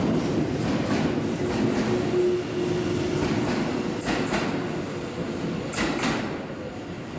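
Series 651 electric limited-express train pulling out of the platform past the listener, with steady running noise and its wheels clicking over rail joints. Sharp double clicks come about four and six seconds in, and the sound fades as the train draws away.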